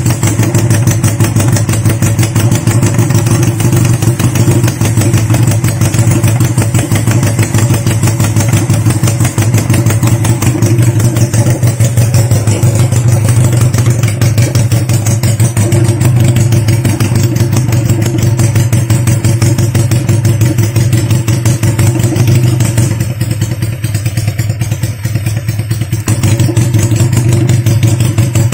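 Honda CB175's air-cooled parallel-twin four-stroke engine running steadily while being warmed up, a low steady hum with mechanical clatter on top; it eases off briefly about three-quarters of the way through, then picks up again.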